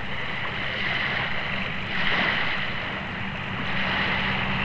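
Steady rushing noise with a low, even hum underneath.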